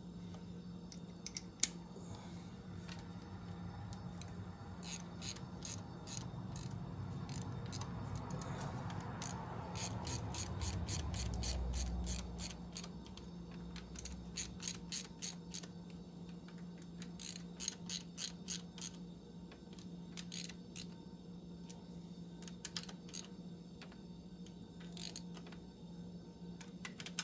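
Hand ratchet clicking in quick runs of short clicks as bolts are turned down snug, over a steady low hum.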